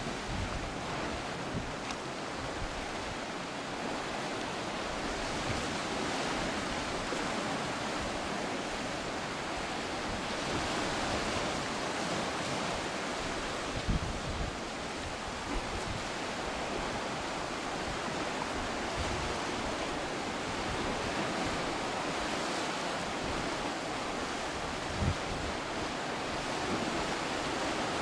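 Sea surf washing steadily over a rocky shore, with wind on the microphone giving a couple of brief low bumps.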